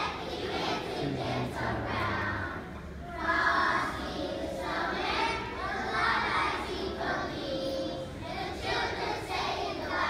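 Young children singing together as a choir, with some audience chatter underneath.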